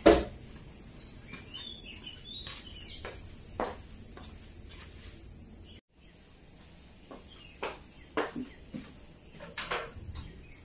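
A sharp knock as a metal-framed window is pushed open, then small birds chirping outside over a steady high hiss. Later come a few light clicks and taps as a door's lock is worked.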